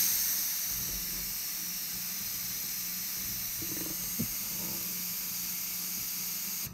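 Compressed air from a Fortress 1-gallon compressor's hose, released through a held-open air nozzle in a steady, even hiss. It starts abruptly and breaks off briefly at the end.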